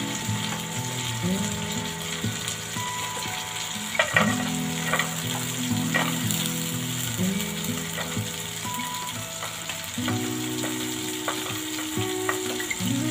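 Fish steaks frying in hot oil with a steady sizzle. Between about four and six seconds in, garlic cloves are dropped into the pan with a few sharp clicks. Soft background music with held chords plays underneath.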